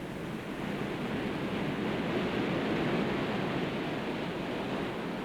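Sea sound on an old film soundtrack: a steady wash of waves that swells toward the middle and eases off again.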